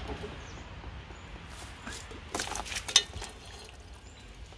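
Sharp metal clicks and scraping from a Massey Ferguson tractor's power steering filter housing being worked loose by hand. The clicks cluster about two to three seconds in, with one sharp click near the three-second mark.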